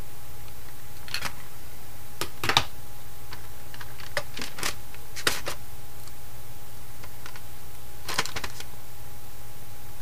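Scattered light clicks and taps of a soldering iron tip and tweezers against a circuit board and its flash chip as the chip is worked loose and lifted off, the loudest about two and a half seconds in. A steady low hum and a faint steady tone run underneath.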